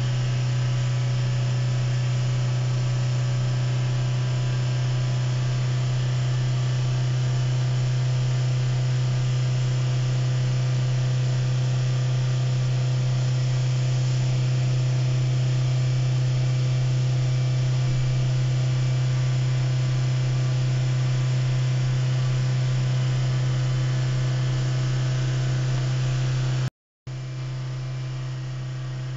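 GAC GS4 petrol engine held at a steady fast idle of about 4000 rpm in Park, a constant drone, revved to bring it up to temperature while it is checked for overheating. The sound breaks off for a moment near the end and resumes slightly quieter.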